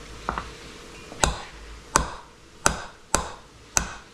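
Metal measuring spoon knocked against a stainless steel mixing bowl about six times, sharp clinks roughly two-thirds of a second apart, to shake sticky tomato paste off the spoon.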